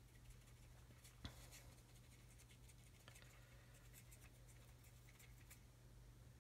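Near silence: room tone with a steady low hum, faint light scratching from a paintbrush working dry pigment on a small model part, and one small click just over a second in.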